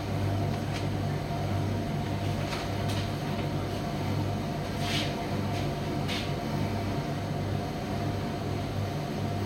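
Primus commercial tumble dryer running, its drum turning with a steady low hum that swells and fades slightly. A few light clicks come from inside.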